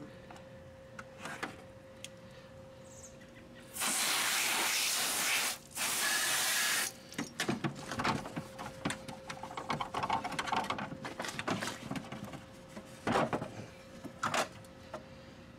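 Hose spray nozzle hissing water onto a riding mower's plastic body panels in two bursts, starting about four and six seconds in, each a second or more long. Scattered clicks and knocks follow as the wet panels are handled.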